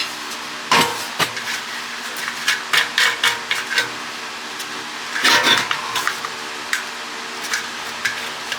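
Scattered metal clanks and knocks of water pump and tank parts being handled and tapped, with a busier run of clatter about five seconds in, over a steady background hum.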